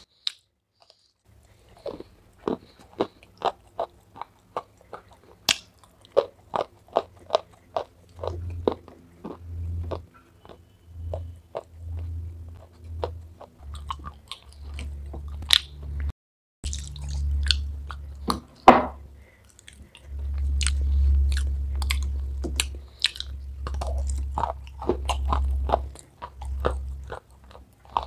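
Close-miked biting and chewing of dry, crunchy 'Punjab biscuit' clay pieces coated in a white khadi chalk paste. A quick run of sharp crunches gives way, about a third of the way in, to slower chewing with deep rumbling and a few louder crunches.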